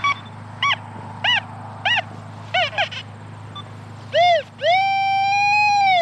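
Metal detector target tones: five short beeps that each bend up and down in pitch, then a longer beep and a held tone of about a second and a half, as the coil passes back and forth over a buried metal target.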